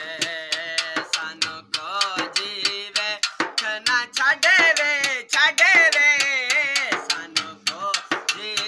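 A man singing a Punjabi naat in a high, ornamented voice with strong vibrato. A small steel-shelled hand drum keeps a quick, steady beat under the singing.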